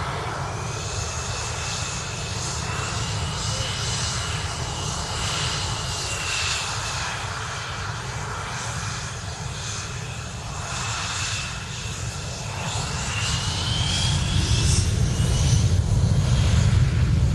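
Boeing E-6B Mercury's four CFM56 turbofan engines running as the jet rolls slowly along the runway, a high whine wavering in pitch over a low rumble. The rumble grows louder near the end.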